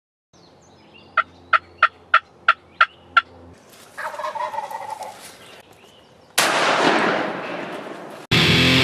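A run of seven short, evenly spaced turkey yelps, then a wild turkey gobbling for about a second and a half. About two-thirds of the way through comes a sudden loud blast that fades away over about two seconds, and guitar music cuts in at the very end.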